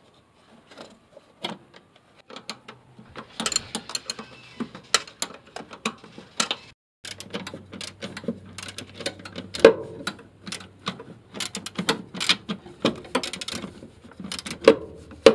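Small ratchet wrench clicking in quick, uneven runs, with clinks of metal on metal, as the mounting nuts of a clutch master cylinder are run down on the firewall studs.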